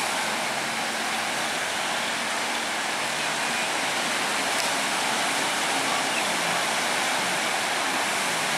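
Steady rushing wash of sea surf, with a faint low engine hum underneath from the boat towing a banana boat.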